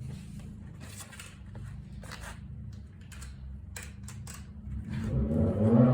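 Scattered light clicks and knocks of a mountain bike's front wheel fasteners being unscrewed and the wheel handled, over a steady low hum. A louder low sound builds near the end.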